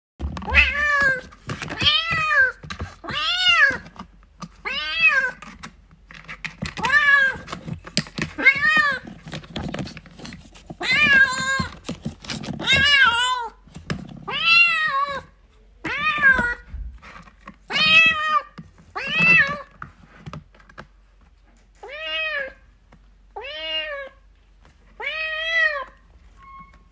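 A cat meowing loudly and repeatedly, about fifteen meows, each rising then falling in pitch, with a short pause a little past two-thirds of the way through. A few soft knocks come between the calls.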